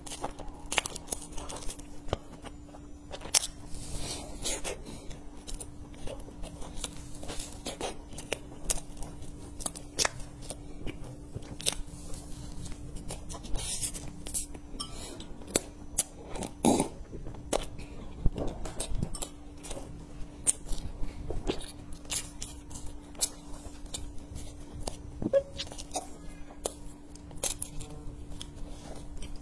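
Close-miked eating of a soft cream-filled sponge bun: bites, wet chewing, lip smacks and mouth clicks, over a faint steady hum.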